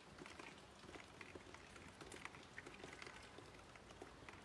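Light rain: a faint, irregular patter of drops ticking and tapping over a soft hiss.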